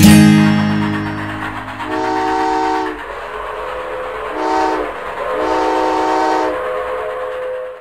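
Steam locomotive whistle sounding three blasts, a longer one, a short one and another longer one, each a chord of several tones over a steady hiss. A guitar chord from the music rings out at the start.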